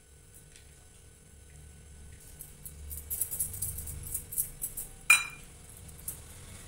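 Roasted peanuts rattling and clattering as they are tipped out of a small steel bowl onto a plate of poha, then a single loud ringing clank, about five seconds in, as the steel bowl is set down on the tiled floor.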